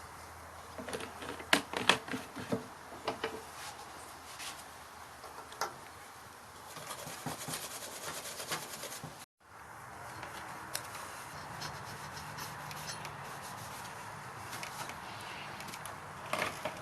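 Workbench handling noises: a flurry of sharp clicks and knocks, then a stretch of rubbing or scraping. After a sudden cut comes a steady low hum with a few light ticks, and a short burst of clicks near the end.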